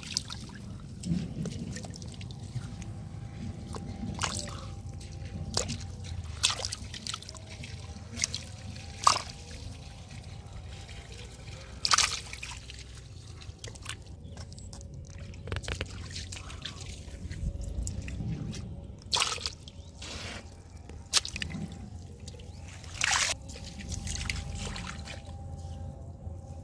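Shallow muddy water splashing and sloshing as hands grab climbing perch, with a dozen or so sharp, irregular splashes.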